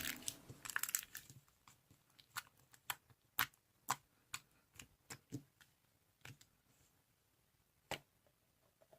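Faint, irregular clicks and taps, about a dozen of them spread over several seconds, with quiet between.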